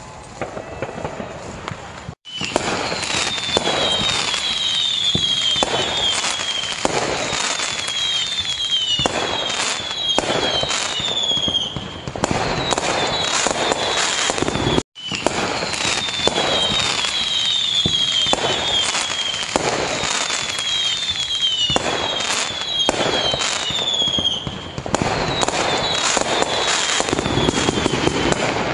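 Aerial fireworks display: a dense, continuous volley of shell bursts, bangs and crackles, with runs of short falling whistles.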